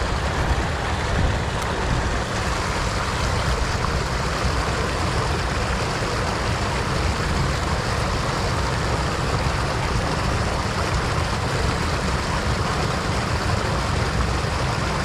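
Mountain river water rushing steadily over a small rocky cascade close by, a loud even rush with a deep rumble underneath.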